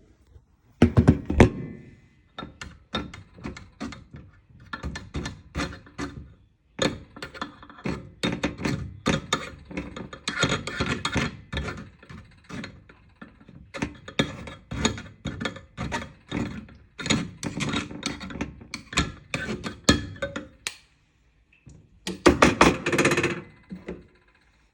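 Kitchen strainer knocking and tapping against a bowl while the last of a homemade onion-and-honey syrup is strained off the onion pieces: two or three uneven knocks a second, a short pause about six seconds in, and a louder, rapid flurry near the end.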